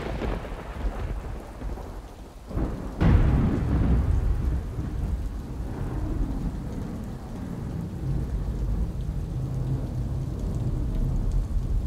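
Thunderstorm sound effect: rain with rolling thunder, a sudden loud thunderclap about three seconds in, then a long low rumble.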